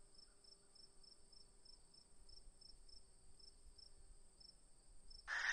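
Faint cricket chirping, a steady high chirp about three times a second over near silence. A short, louder sound with a brief tone in it comes in near the end.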